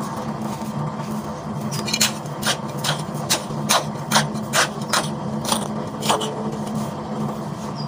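A mound of gravelly sand being patted and slapped into shape: about a dozen strikes, roughly three a second, starting about two seconds in and stopping a little after six seconds. A steady low hum runs underneath.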